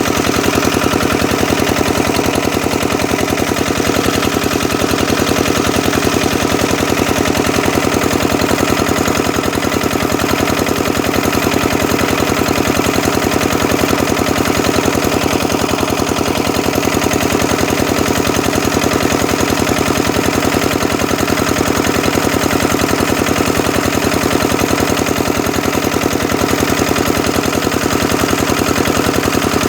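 Kubota engine running steadily at a constant speed, its exhaust beats coming in a rapid, even stream.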